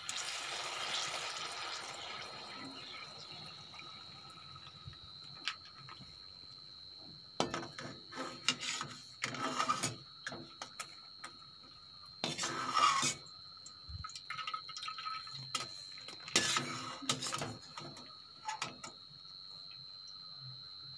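A pappadam deep-frying in hot oil in an aluminium kadai: sizzling at the start that fades over the first few seconds, then several short bouts of a steel slotted spoon scraping and knocking against the pan as the pappadam is turned and lifted out.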